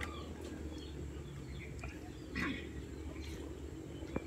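Outdoor ambience: a few faint bird chirps over a low, steady rumble.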